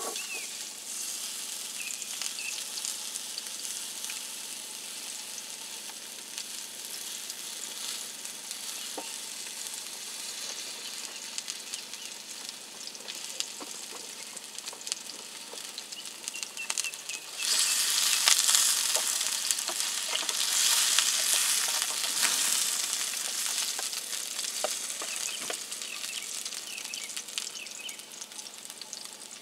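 Bacon-wrapped chicken sizzling in a frying pan over a campfire: a steady hiss with scattered pops, growing louder for about five seconds a little past halfway.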